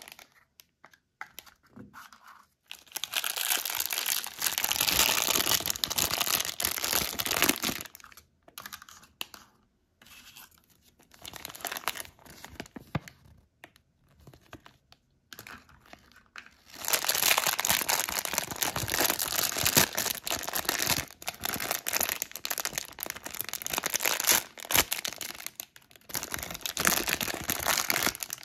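A thin plastic foil toy packet crinkling and being torn open by hand. It comes in two long stretches, one a few seconds in and one from about halfway to the end, with quieter rustling and small clicks between.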